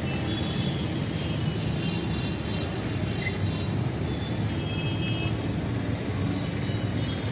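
Wind buffeting the phone's microphone: a steady, low, rushing noise.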